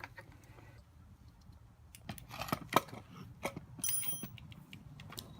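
Scattered light metallic clicks, taps and clinks of tools and metal parts being handled, with a brief ringing clink about four seconds in.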